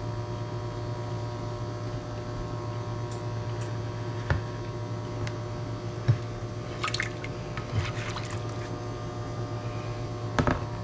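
A steady low electrical hum with a few faint handling clicks, then near the end shrimp and their cooking liquid poured from a plastic bowl into a glass baking dish, with splashing and a few knocks.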